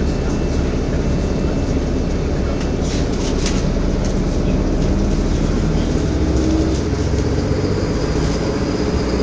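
Inside a Wright StreetCar bus, a Volvo B7LA with a six-cylinder diesel, under way: steady engine and road rumble, with a few brief squeaks or rattles about three seconds in and a tone that rises gently in the second half.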